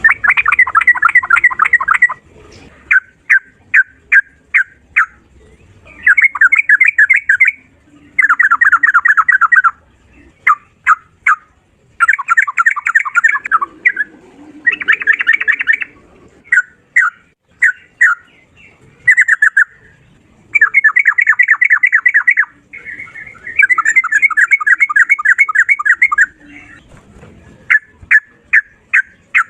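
Yellow-vented bulbul (trucukan) singing loudly in 'ropel' style: fast runs of rapid repeated notes lasting one to two seconds, alternating with strings of short, separate notes.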